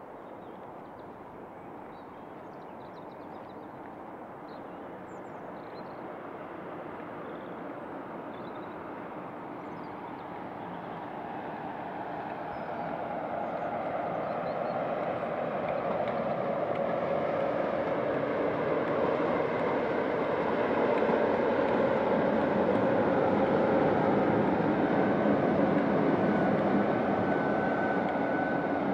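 Diesel-locomotive-hauled train approaching, its engine and wheel rumble growing steadily louder for about twenty seconds, then passing at its loudest with a steady engine note and beginning to fade near the end.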